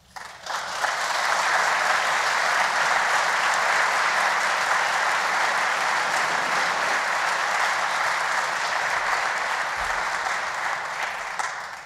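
Audience applauding: steady clapping that builds up within the first second and dies away near the end.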